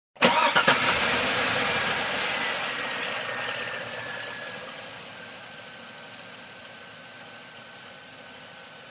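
Car engine starting: a quick burst of cranking and catching, then the engine runs steadily at idle, slowly getting quieter.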